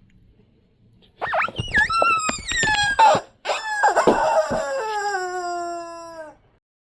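Dog toy squeaker being squeezed. A wavering squeal starts about a second in, then comes a few short squeaks, then one long squeak that slowly drops in pitch before it stops.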